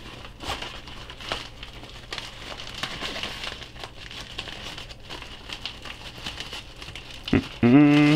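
Rustling and crinkling of a mini tripod's fabric carry bag and its plastic wrapping as the tripod is handled and pulled out, with scattered small clicks and taps. A short hum of a man's voice, the loudest sound, comes near the end.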